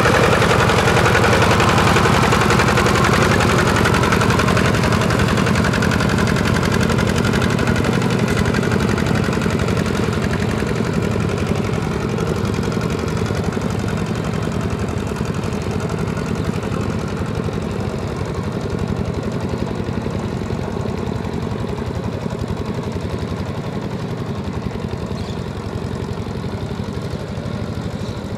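Single-cylinder diesel engine of a Kubota two-wheel walking tractor running steadily under load as it pulls a disc plough through paddy mud. It fades gradually as the tractor moves away.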